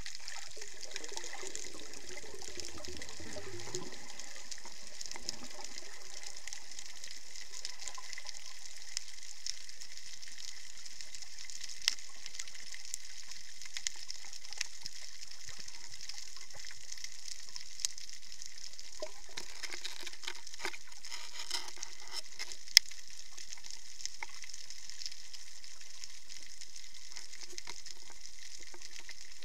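Underwater reef sound picked up by a submerged camera: a steady high hiss with scattered sharp clicks, and a low falling gurgle in the first few seconds.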